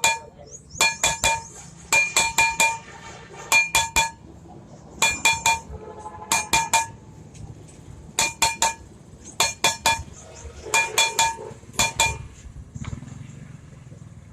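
Hammer striking metal in quick bursts of three or four ringing blows, a burst about every second and a half, stopping shortly before the end.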